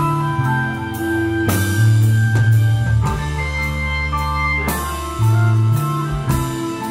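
Live rock band playing: drum kit with repeated cymbal crashes, electric guitars, bass and keyboard, with held low notes underneath.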